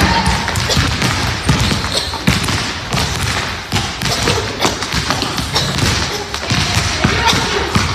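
Rope skipping: a jump rope slapping the floor and feet landing, a fast, uneven run of thumps.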